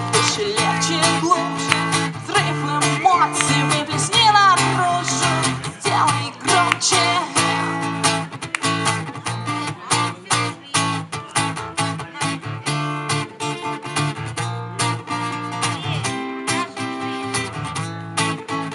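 Acoustic guitar strumming chords in an instrumental break of a live song, with a wavering melodic line above it during the first several seconds.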